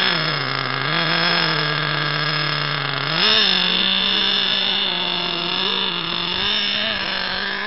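Small two-stroke engine of a gas-powered RC monster truck running at idle. Its pitch rises briefly at the start, then steps up about three seconds in and holds steady.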